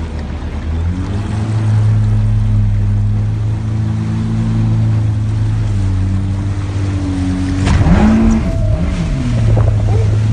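Jet ski engine running over water, its note shifting in pitch a few times as the throttle changes, with water and wind hiss. About eight seconds in comes a louder rush as the engine pitch dips and climbs again.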